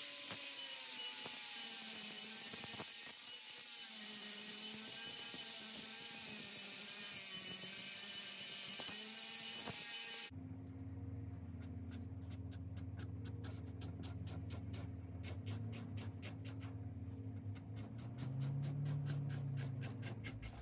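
Angle grinder with an abrasive disc grinding a forged crowbar-steel blade blank, a harsh steady hiss with the motor pitch wavering under load. It cuts off abruptly about halfway, leaving a quieter low hum and a run of short, scratchy strokes.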